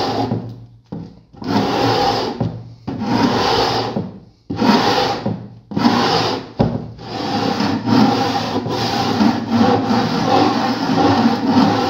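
A flat melamine sanding board faced with 60-grit sandpaper is rubbed back and forth over the wooden edge of a cajón in long, scratchy strokes, truing the edge flat so the back panel will glue on perfectly. The first half is a series of separate strokes about a second or more apart; after about seven seconds the rubbing runs on almost without a break.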